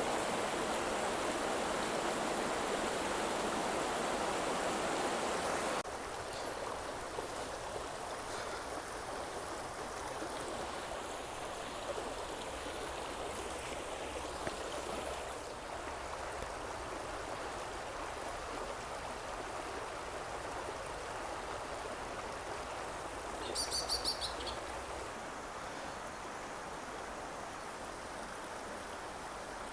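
A stream's running water, a steady rushing sound that drops to a softer level after an abrupt change about six seconds in. A short burst of high chirps comes about three-quarters of the way through.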